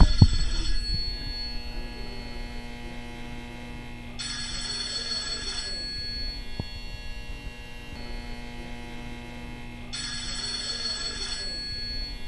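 Telephone ringing in bursts about a second and a half long, twice in full after the tail of an earlier ring, with a steady electrical hum underneath. A single sharp click comes about six and a half seconds in.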